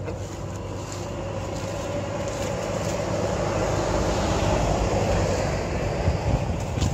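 A road vehicle passing, a rumbling noise that grows louder from about two seconds in and stays loud toward the end.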